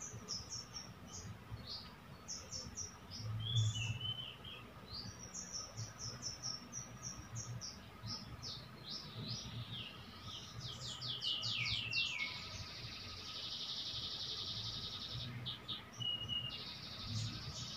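Small birds chirping in quick runs of short, high, falling notes, with a buzzy trill held for a couple of seconds about two-thirds of the way in and again briefly near the end.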